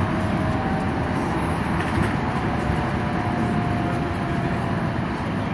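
Alstom Citadis Dualis tram-train running, heard inside the passenger cabin: a steady rumble and rolling noise with a faint whine that sinks slightly in pitch.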